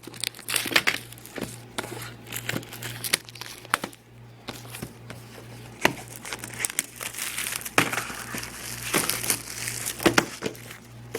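Product packaging being handled and opened by hand: irregular crinkling and tearing with many sharp clicks and scrapes, over a faint steady low hum.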